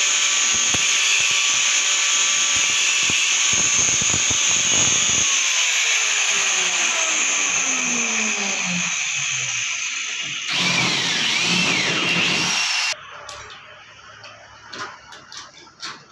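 Angle grinder running while a drill bit is held against its disc to sharpen a bit that is burning in the steel. About five seconds in, the motor is switched off and winds down with a falling whine. A second loud stretch of motor noise follows, cuts off suddenly, and leaves a few light knocks of tools being handled.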